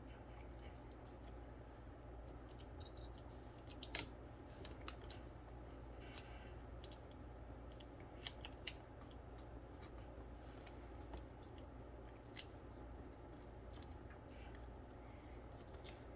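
Scattered small clicks and taps of laptop parts being handled and fitted together, with a few sharper clicks about four and eight seconds in, over a low steady hum.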